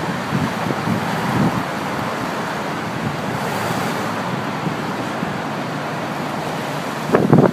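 Storm waves on Lake Michigan surging and breaking in a steady rush of surf, mixed with strong wind on the microphone; a louder gust of wind noise comes near the end.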